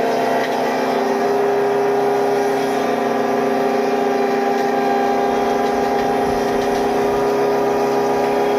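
Woodworking machinery running steadily: a loud, constant motor hum with several held tones.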